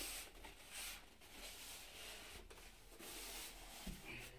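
Faint rubbing and scraping of polystyrene foam packing and its plastic wrap as the boxed studio monitor is handled and set down.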